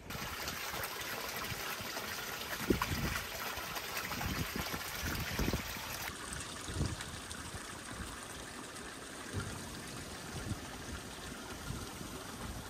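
Running water: a small stone-lined stream flowing steadily, then water from a spout trickling and splashing into a stone basin, the sound changing abruptly about halfway through.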